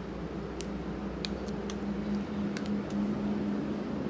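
A few small, sharp clicks as fingers and nails press a replacement display into a smartphone's frame, over a steady low hum.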